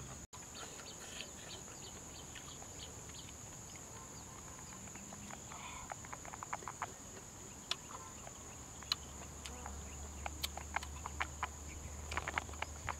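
Steady high-pitched insect drone, with short wet clicks and smacks of open-mouthed chewing coming in clusters partway through and near the end.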